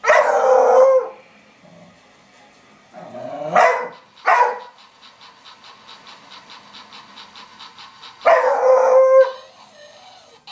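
Dog barking: a long bark at the start and another about eight seconds in, two shorter barks in between around the four-second mark. Between the barks there is a faint, even clicking, about five clicks a second.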